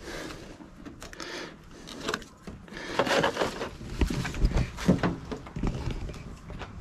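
Rustling and scraping from handling things in a pickup truck's bed, with a few dull knocks about four to five seconds in.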